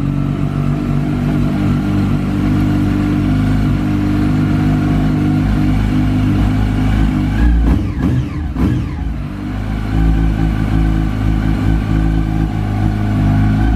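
Yamaha R1 inline-four engine running at idle, with a short rise and fall in pitch about eight seconds in. It is being run to check whether the windscreen still vibrates now that felt pads are fitted under it.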